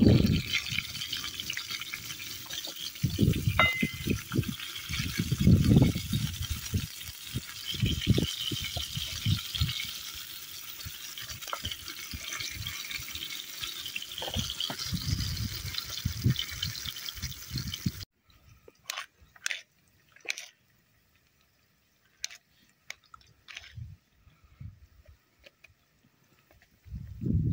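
Sliced onions sizzling in hot oil in a pan over a wood fire, a steady hiss with scattered low thumps. About two-thirds of the way through it cuts to near quiet with a few small clicks of a knife cutting button mushrooms.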